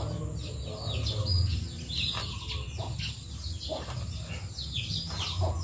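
Small birds chirping over and over, each chirp a quick falling note, over a low steady background rumble.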